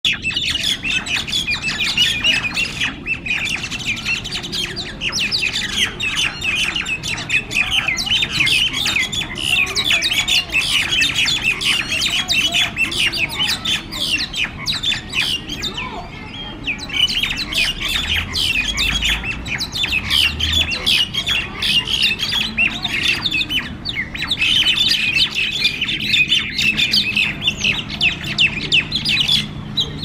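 A group of common mynas fighting, giving a near-continuous din of harsh, rapid squawking calls that eases briefly about halfway through. It is the noisy communal aggression of mynas brawling in pairs.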